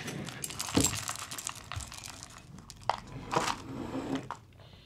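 Cereal bag crinkling and rustling as it is handled, with irregular sharper crackles.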